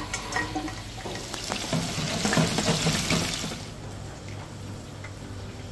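Hot oil sizzling in a Henny Penny F5 electric open fryer vat as crumbed mushrooms fry, louder for about two seconds in the middle. In the first second, light clinks as a wire fry basket tips fries into a steel bowl.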